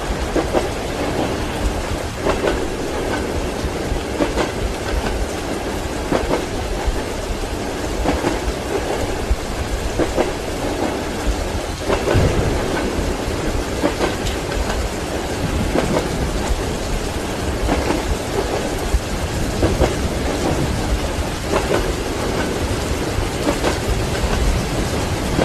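Steady heavy rain with rumbles of thunder, layered over the rhythmic clack of train wheels passing rail joints, a knock about every two seconds.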